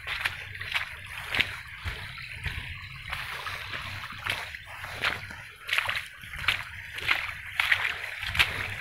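Footsteps splashing and squelching through waterlogged mud and shallow water, a wet slap with each step at walking pace.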